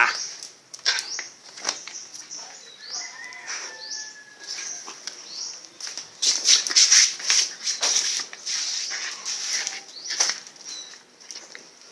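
Rustling and scuffing handling noise as a phone is shaken about and fingers rub close to its microphone, in irregular bursts that are loudest about six to seven seconds in.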